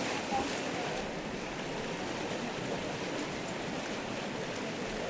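Fast-flowing muddy floodwater rushing steadily and splashing around the legs of people wading across it.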